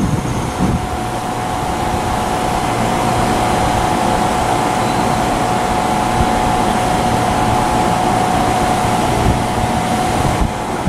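Amtrak train of Amfleet coaches rolling along the track, a steady loud run of wheel-on-rail noise with a steady whine held over it.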